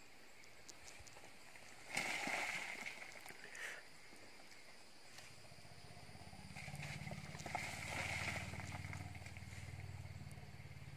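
Two short rushes of noise, then a low pulsing engine drone that comes in about five seconds in, swells and fades, like a small motor vehicle passing.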